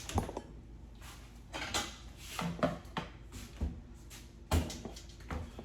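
Kitchen handling: a metal spoon and cooking pot knocking and clinking in a series of separate short strikes, about eight in all.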